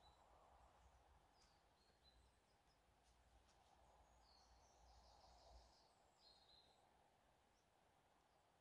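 Near silence with faint birdsong from the surrounding woodland: a few short high chirps and a brief trill about halfway through.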